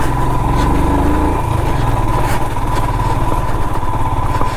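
Royal Enfield Himalayan's single-cylinder engine pulling the motorcycle up a rough, stony climb. The revs rise about a second in, then drop back and hold steady.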